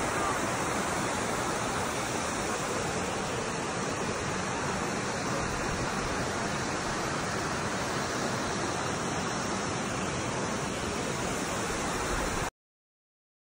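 Steady rushing of a waterfall and cascading creek water over rocks, picked up on a phone microphone. It cuts off suddenly about a second before the end.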